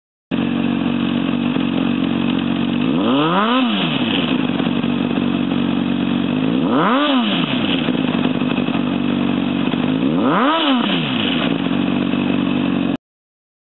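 Honda CBR600RR inline-four engine idling through a Scorpion titanium slip-on exhaust, blipped three times. Each rev rises and falls back to idle within about a second. The sound cuts in and cuts off abruptly.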